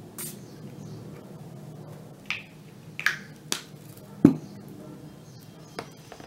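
Short spritzes of a fine-mist pump spray bottle being sprayed at the face: about six short, sharp sounds at uneven gaps, the loudest a duller knock a little after four seconds in. A faint steady low hum runs underneath.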